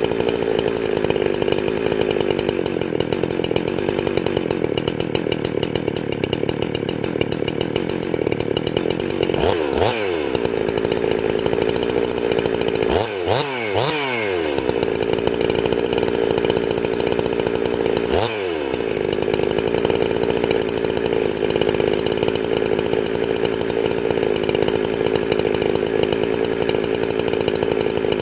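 Ported chainsaw with an opened-up muffler idling while its low-speed carburetor jet is turned in and then out. The idle sags and picks back up about ten seconds in, again around thirteen to fourteen seconds, and once more near eighteen seconds, as the mixture is taken lean and then rich until the saw wants to die.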